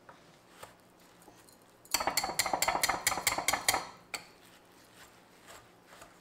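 Steel wire whisk clinking against a glass bowl as it beats semolina and melted butter. There are rapid clicks, about six a second, for about two seconds starting near the two-second mark, then a single click and a few faint taps.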